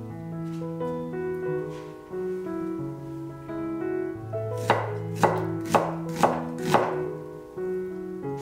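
A knife slicing an onion on a wooden cutting board: five sharp chops about half a second apart, starting just past halfway through. Soft background music plays throughout.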